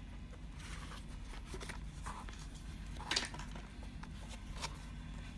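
A cardboard toy box with a plastic window being handled and turned over in the hands: faint rustles and light taps, and one short, sharper scrape about three seconds in, over a steady low hum.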